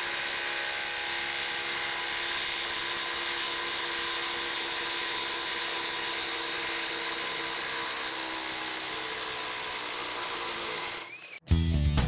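Bosch IDH182 18-volt brushless impact driver hammering steadily as it drives a 1/2 by 8 inch lag screw into stacked lumber under heavy load. It stops about eleven seconds in, when the lag is fully seated, and guitar music starts right after.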